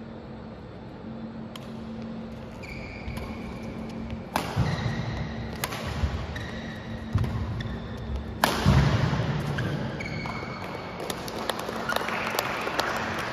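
Badminton rally: sharp racket strikes on the shuttlecock, the loudest about eight and a half seconds in, with short squeaks of shoes on the court floor between them.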